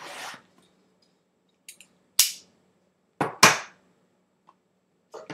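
Trading-card box packaging being torn open by hand: a brief hiss, then four short, sharp rips and snaps of wrapper and cardboard.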